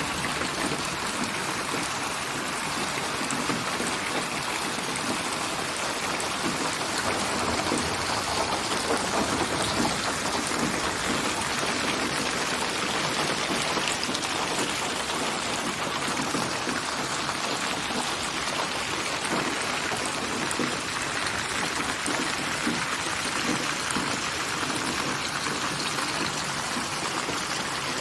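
Steady rain: a dense, even patter of raindrops with a constant hiss. It is a synthesized rain soundscape built from many rain recordings and placed around the listener in binaural '8D' surround.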